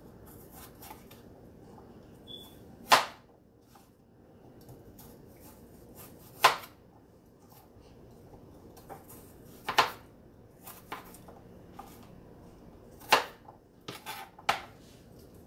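Kitchen knife cutting raw papaya into small cubes on a plastic cutting board: the blade knocks sharply on the board about every three seconds, with lighter taps between and a quick run of taps near the end.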